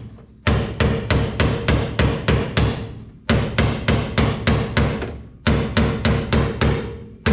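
Hammer blows on a hand impact driver set on a rusted body screw, striking to shock it loose. The blows come in three quick runs of about four a second, each blow ringing.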